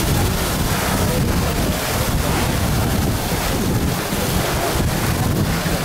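Water of the Fountain of the Four Rivers splashing into its stone basin, a steady rushing noise, with wind buffeting the microphone.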